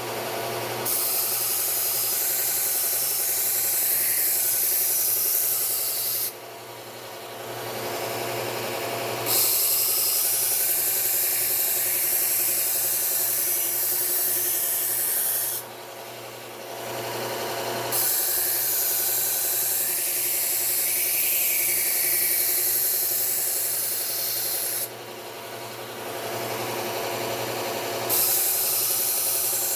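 Low-speed belt sander with a 3M Cubitron II P120 belt grinding a Victorinox kitchen knife edge-trailing to set the apex: a loud, steady hiss of steel on the belt in four long passes of about six seconds each, with the sander's motor humming alone in the short gaps between them.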